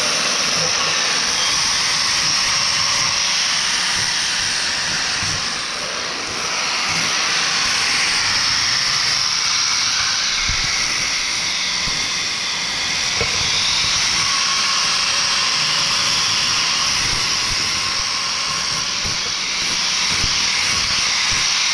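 Angle grinder with a sanding disc running under load against cast excavator bucket teeth, cleaning the worn metal before they are welded up. A steady, continuous grind that eases slightly three times as the pressure on the work changes.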